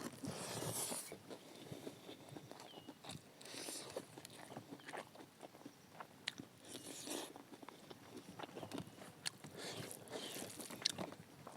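A person eating close to the microphone: chewing and crunching food, with many small mouth clicks and smacks.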